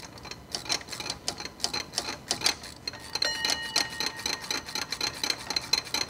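Socket ratchet clicking on a bolt in a car engine bay: rapid, fairly even clicks, several a second, as the bolt is turned.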